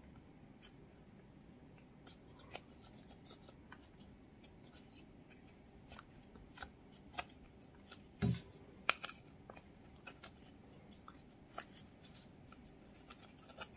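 Wooden stick scraping and picking at pressed eyeshadow powder in a plastic palette, a run of faint, irregular scratches and small clicks. A dull thump comes a little past halfway, followed shortly by a sharper click.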